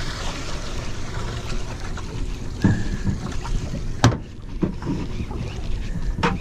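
Wind on the microphone and water against the boat's hull, while a fishing reel is cranked and handled. A few sharp clicks come through, the loudest about four seconds in.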